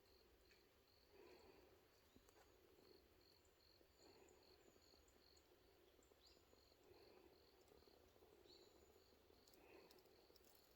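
Faint insect chirping, most likely a cricket, in an autumn forest: a high, thin chirp repeating evenly about twice a second.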